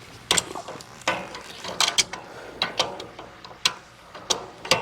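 Large adjustable wrench clinking against a 2003 Toyota 4Runner's inner tie rod as it is fitted and shifted around: about nine sharp, irregular metal clicks.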